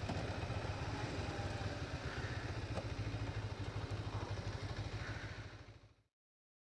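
Kawasaki GPZ 500 S parallel-twin motorcycle engine running steadily at low revs, heard through a helmet camera. It fades out to silence near the end.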